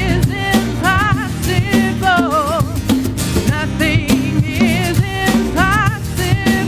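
Live worship band music: a drum kit and band under a lead melody that slides and wavers with strong vibrato.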